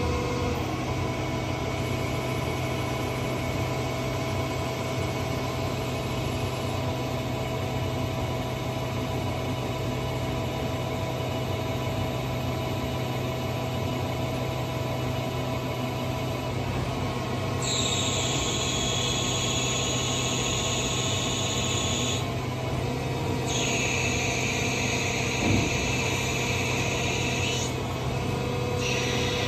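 2019 Okuma Genos L3000-E CNC lathe running, its spindle turning a metal bar with a steady hum while the turret's tool cuts. About halfway through, a high-pitched squeal from the cut sets in, breaking off twice for a second or so, with a single short knock near the end.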